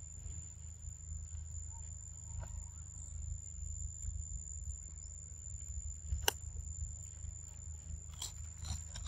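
Quiet forest ambience: a low steady rumble under a thin, steady high-pitched whine, with one sharp click about six seconds in.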